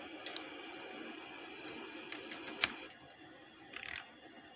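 Sharp plastic clicks from a Pioneer DEH-249UB car stereo: its front buttons being pressed and a USB flash drive being pushed into its front USB port, the loudest click a little over two and a half seconds in and a short cluster near the end. A faint steady hiss sits under them and drops away about three seconds in.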